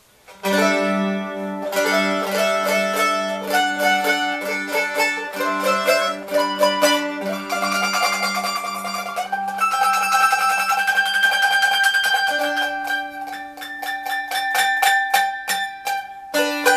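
Handmade bowl-back mandolin with scalloped rosewood ribs and a spruce top, played with a pick. A melody starts about half a second in over steady low notes, with longer held notes around the middle.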